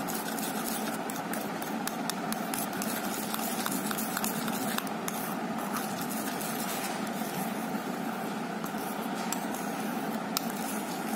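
Steel spoon stirring and scraping a wet paste in a stainless-steel bowl, with many light irregular clinks of metal on metal over a steady background hum.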